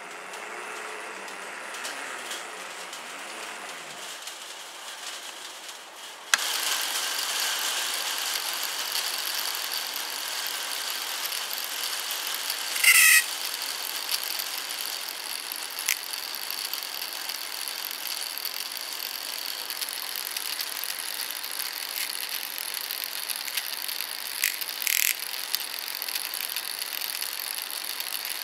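A 1:24 scale model tram's electric motor and gear drive running, a steady whir with a high gear whine. It jumps suddenly louder about six seconds in, with one short, loud scraping burst near the middle and a few light clicks later.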